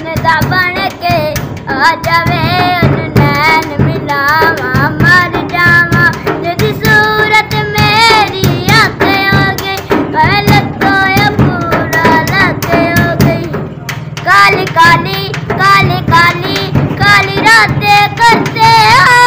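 A boy singing a Saraiki mahiya folk song, long held notes with wavering, ornamented pitch, sung almost without a break.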